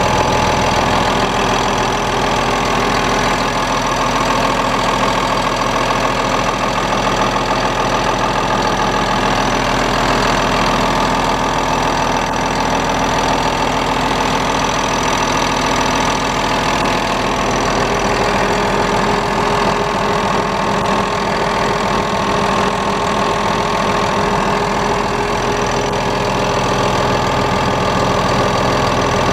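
Komatsu D65 dozer's diesel engine running steadily, heard up close with the engine compartment open.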